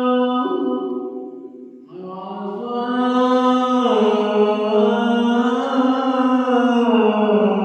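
A man's voice chanting an Islamic devotional line in long, ornamented held notes. One phrase fades out about a second and a half in, and after a short breath a new phrase rises and is held with a wavering, sliding pitch.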